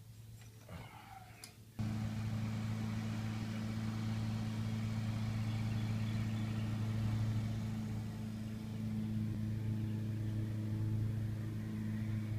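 A steady, low mechanical hum from an electric motor that starts suddenly about two seconds in and runs evenly, with a hiss above it.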